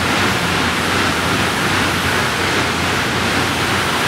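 Rogue air bike's fan spinning fast under hard pedalling, a loud, steady rushing whoosh of air.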